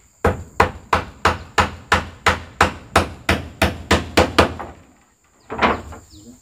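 A hammer striking in a steady run of about three blows a second. It stops about four and a half seconds in, and there is one more blow a second later: nails being driven while putting up a room's walls.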